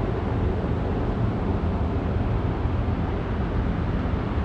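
Steady low rumble of background noise, even in level throughout, with a faint steady hum and no distinct events.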